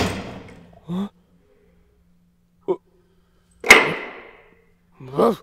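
Two sudden sharp hits about three and a half seconds apart, each fading out over about a second, the second one louder, with brief voice sounds between and after them.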